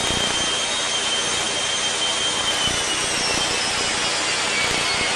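Super Shockwave jet truck's twin Pratt & Whitney J34 turbojets running with the afterburners lit: a steady rush with a high whine that slowly falls in pitch.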